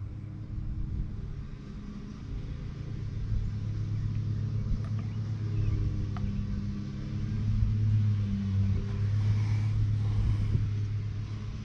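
A motor running with a low, steady drone that grows louder about three seconds in and eases near the end, with a few faint clicks.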